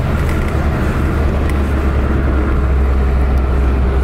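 Steady low rumble of a vehicle driving along a road at speed, engine and tyre noise heard from inside the cabin.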